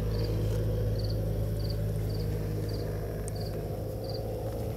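Crickets chirping outdoors, short high triple-pulsed chirps repeating at a steady pace a little faster than once a second, over a steady low machine hum.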